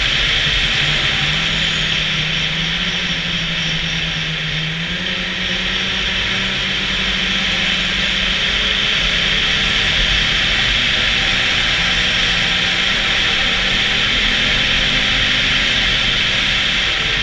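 Snowmobile engine running steadily under way, its pitch rising and dipping slightly with the throttle, over a steady high hiss.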